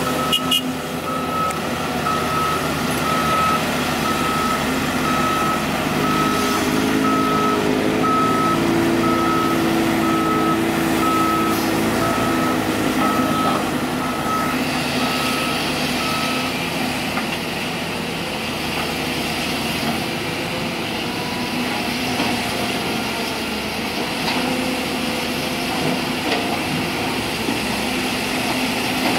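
A heavy-vehicle reversing alarm beeping steadily about once a second, stopping a little past halfway, over diesel engines running at a construction dig. An engine note rises and holds higher for several seconds around the middle.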